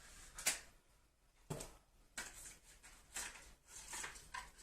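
Faint handling noises from a metal part of a microphone kit being picked up and moved: a few short, scattered knocks and rustles.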